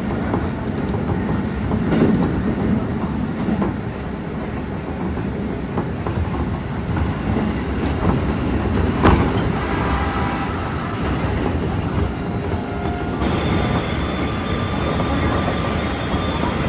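Keikyu commuter train running, heard from inside the passenger car: a steady rumble of wheels on rail with some clickety-clack. A sharp knock comes about nine seconds in, after which several steady high whining tones ride over the running noise.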